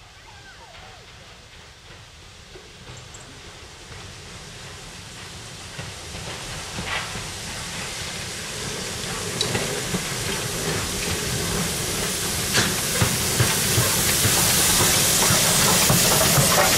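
BR Ivatt Class 2MT 2-6-2 tank engine No. 41312 approaching with a train of coaches, growing steadily louder until it passes close by with a hiss of steam. A few sharp clicks sound from the running gear and rails along the way.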